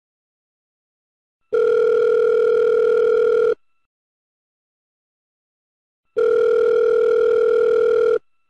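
Telephone ring tone: a steady electronic ring heard twice, each ring about two seconds long with a pause of a little over two seconds between, the first starting about a second and a half in and the second ending near the end.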